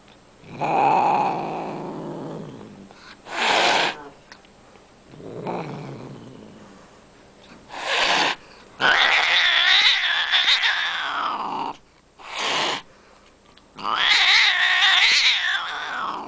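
A white Scottish Fold cat hissing and growling. Three short, sharp hisses alternate with long, wavering growl-yowls, the loudest from about nine to twelve seconds in. The sounds of a cat giving a defensive warning.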